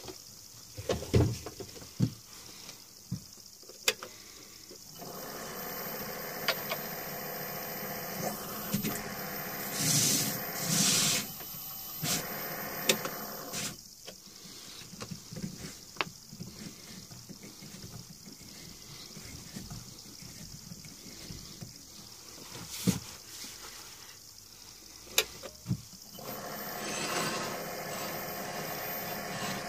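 Hands working on a stopped woodturning lathe: knocks and clicks, then stretches of metal scraping and rubbing with a ringing tone, as a wood blank is fitted into the metal chuck and the tool rest is moved along the lathe bed.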